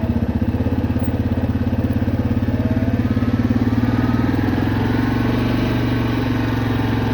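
A vehicle's engine running at a steady speed while driving, a low, even drone with a fast pulsing beat.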